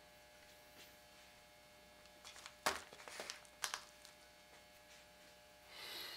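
Faint handling noise: a quick cluster of small clicks and knocks about two to four seconds in, then a short rustle near the end.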